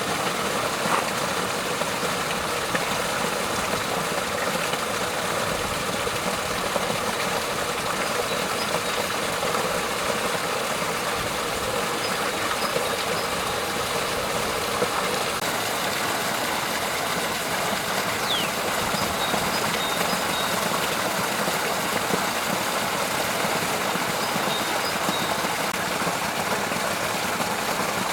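Small waterfall splashing steadily into a pond, an even noise of falling water, with a few faint high chirps over it.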